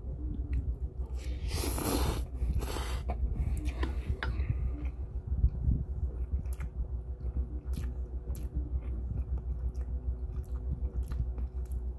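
A man slurping cold spicy instant bibim noodles off chopsticks, with two long slurps in the first few seconds and a shorter one about four seconds in. He then chews the mouthful with his mouth closed, with small wet clicks.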